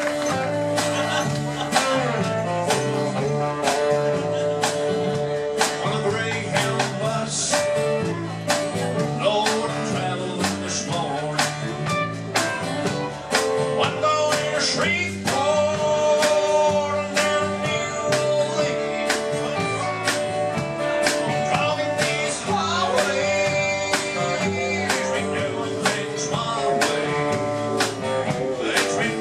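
Live country band music: guitars playing over a steady drum beat and a stepping bass line.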